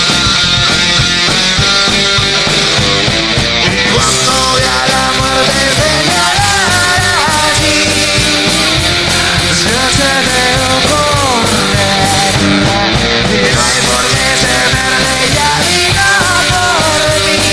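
Rock band recording in an instrumental break with no vocals: electric guitar, bass and drums, with a lead melody gliding up and down in pitch from about six seconds in.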